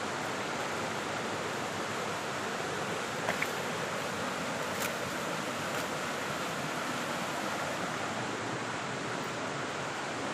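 Steady rush of water falling and flowing at a waterfall, an even unbroken roar, with a couple of faint clicks about three and five seconds in.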